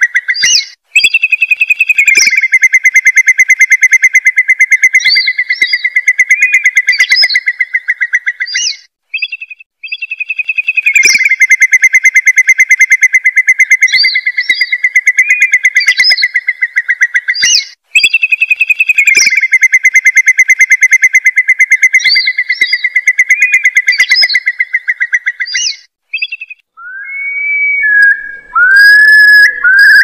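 Recorded call of the gajahan, a curlew, played as a hunting lure: three long, very fast trills on a nearly steady pitch, each lasting about seven seconds, with short higher notes between them. Near the end a different sound takes over, a few rising whistled notes.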